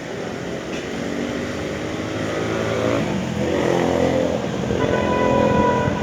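A motor vehicle's engine running and growing louder, as if it is getting closer.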